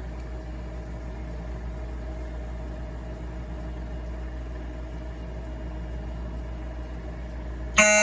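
A steady low hum, then a few seconds in, close to the end, a fire alarm bursts on loudly: several alarm tones at once, some sliding upward. It is the sign that the Silent Knight SK-Photo smoke detector, tripped by a test magnet, has gone into alarm.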